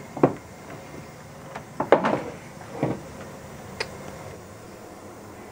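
A few sharp knocks and clunks, the loudest about two seconds in, over a steady low background noise.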